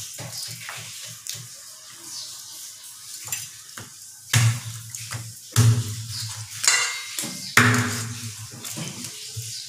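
Meat cleaver chopping raw chicken on a wooden cutting board: lighter knocks of blade on board in the first half, then three heavy chops with a dull thud, a second or two apart.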